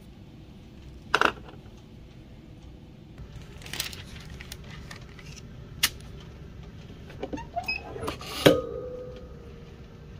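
A few sharp clicks and knocks of hard objects being handled, with light rustling between them; the last knock is the loudest and leaves a short metallic ring.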